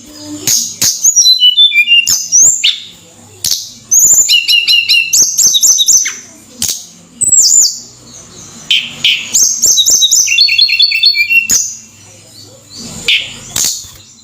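Tledekan gunung songbird singing energetically in phrases of rapid, repeated high whistled notes. Some runs step downward. The phrases come with short pauses between them, and sharp clicks are heard in between.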